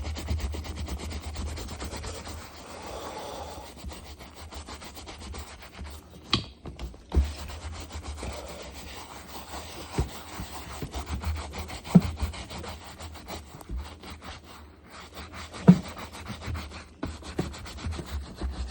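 A brush scrubbing hard and fast on a leather baseball glove, a continuous rasping rub made of quick short strokes. A few sharp knocks cut through it, the loudest about twelve seconds in and again near the end.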